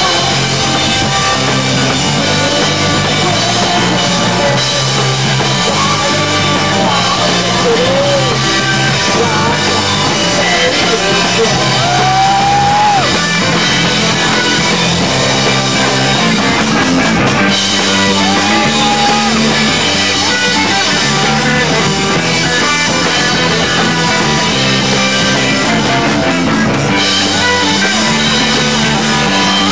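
Live punk rock band playing loudly, electric guitar and drum kit going without a break, with a few brief bending guitar notes midway.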